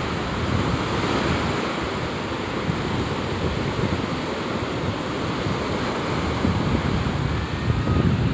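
Ocean surf breaking and washing up the shallows of a sandy beach, with wind buffeting the microphone in low rumbling gusts that grow a little stronger near the end.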